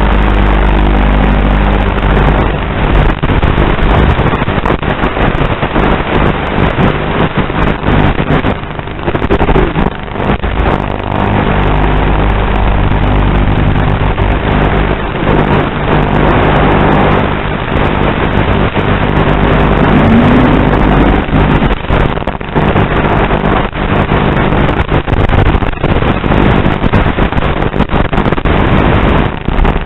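Loud, steady electrical buzz on an analog FPV goggle DVR's audio track. Its pitch holds even as the quad's current draw swings, and it is broken by frequent crackles and brief dropouts.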